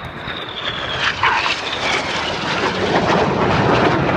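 BAE Hawk T1 jets flying past: a high whine falls slowly in pitch over the first second or so while the jet noise grows steadily louder.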